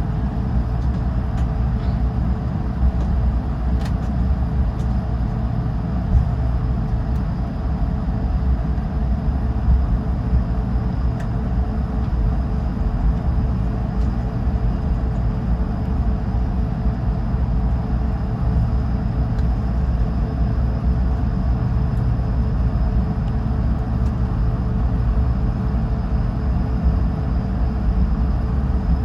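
Cabin noise of an Airbus A220-300 taxiing with its Pratt & Whitney PW1500G geared turbofans at low power: a steady low rumble under a constant engine hum, with a couple of faint knocks.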